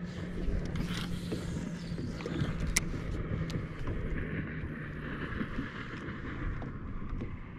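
Wind on the microphone and water lapping at a bass boat's hull, with a steady low hum that stops about two-thirds of the way in. One sharp click comes near the middle.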